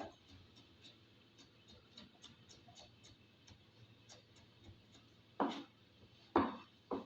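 Kitchen knife cutting vegetables on a cutting board: faint, regular taps about two to three a second, then three louder knocks near the end.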